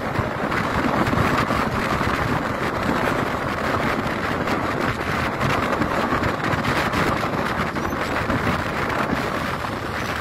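Steady wind and road noise from a vehicle travelling at speed on a highway, with wind rushing over the microphone.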